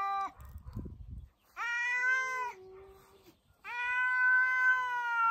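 Cats yowling at each other in a territorial standoff before a fight: a drawn-out yowl of about a second, a fainter, lower moan, then a long, steady yowl starting about three and a half seconds in. A low rustling noise is heard in the first second.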